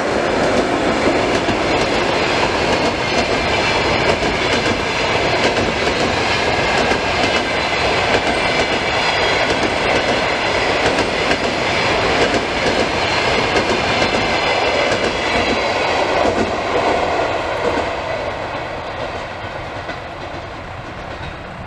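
Passenger train passing close by: the rear section of a ChS7 electric locomotive, then a long string of passenger coaches, wheels clattering over the rail joints. The noise fades away over the last few seconds as the train draws off.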